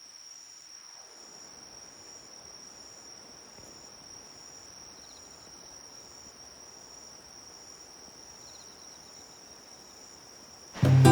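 Insects singing: one steady high-pitched trill, with a second insect calling in short regular pulses, about two a second. Acoustic guitar music comes in near the end.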